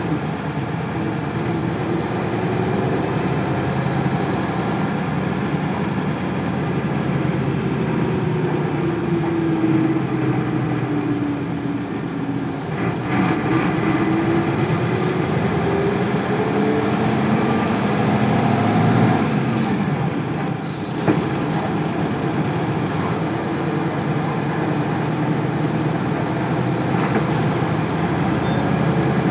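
Isuzu Cubic bus's 8PE1 V10 diesel engine and drivetrain running, heard from inside the cabin. The engine note falls as the bus eases off, then rises again as it pulls on, with a faint click a little after the middle.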